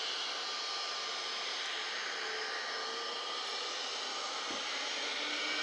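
Airbus A321 airliner's jet engines running with a steady whooshing hiss and a faint whine as it rolls on the runway. Near the end the whine starts to rise and the sound swells as the engines spool up.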